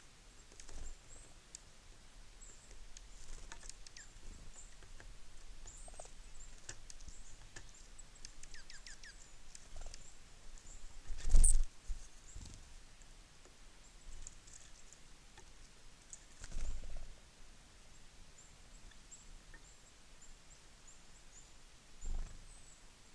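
Small songbirds at a feeder giving many short, high chirps and call notes. Three dull thumps come about halfway through, about two-thirds through and near the end; the first is the loudest.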